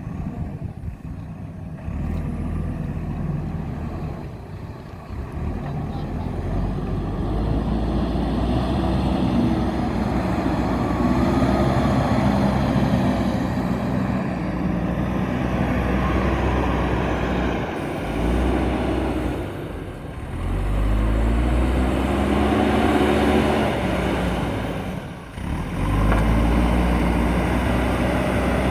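JCB backhoe loader's diesel engine working, its pitch rising and falling as it revs up and down under load. It eases off briefly twice in the second half.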